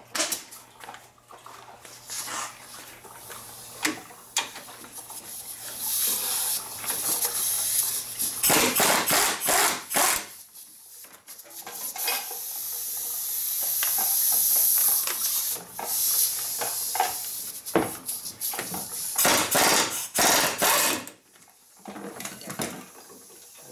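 Air impact wrench hammering loose the two 18 mm brake caliper bracket bolts at a front wheel hub: two long rattling bursts, about nine and twenty seconds in, with a long hissing whir of the air tool in between and scattered metal clinks.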